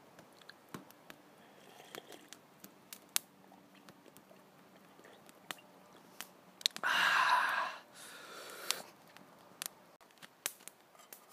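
Drinking hot chaga tea from a metal camp cup: small clicks of the cup being handled, then one loud slurping sip about seven seconds in, followed by a softer one.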